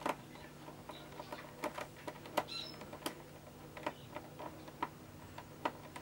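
Faint, irregular small clicks and scratches of a precision screwdriver turning a screw down into a laptop's plastic bottom cover, over a faint steady hum.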